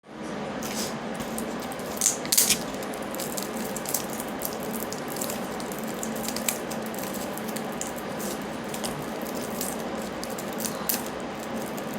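Scattered clicks and crackles over a steady hiss as a childproof container cap is twisted and worked at, the cap clicking as it turns without opening.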